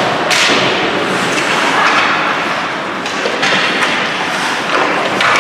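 Ice hockey game play in a rink: repeated swells of hissing scrape from skate blades on the ice, with scattered knocks from sticks, puck or boards.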